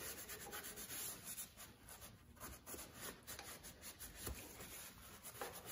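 Paper towel rubbing over the rough-textured plastic fuel tank of a dirt bike, faint irregular scrubbing strokes, wiping off sticker adhesive loosened with WD-40.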